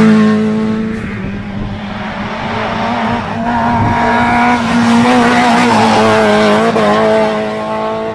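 Renault Clio rally car engine at high revs, driven hard through bends, its note rising and falling as the driver comes on and off the throttle.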